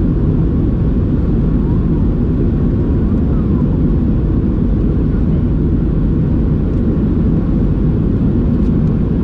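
Cabin noise of a Boeing 737-700 with its CFM56 jet engines under power: a loud, steady, deep rumble with no change in level.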